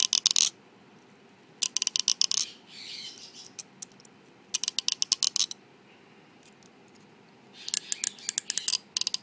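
Fingers strummed down the teeth of a comb, each stroke a quick run of sharp clicks. It is done four times, with pauses between.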